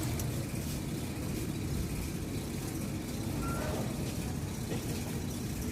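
Steady low rumble of motor-vehicle engines running, with faint voices in the background.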